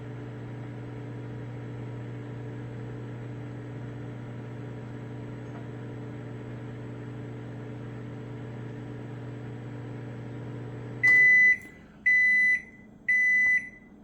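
Black & Decker 700-watt microwave oven running at full power with a steady hum, which stops about eleven seconds in. It is followed by three high beeps about a second apart, signalling that the heating cycle is done.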